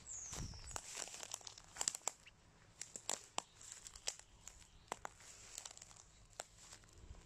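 Irregular crackling and rustling close to the microphone: many small sharp crackles, spaced unevenly.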